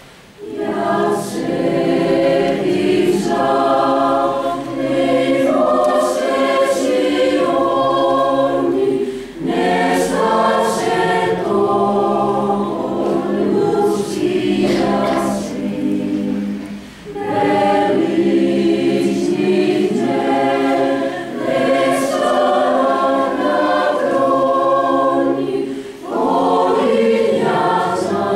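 Mixed choir of women's and men's voices singing in long sustained phrases, broken by short pauses for breath about every eight seconds.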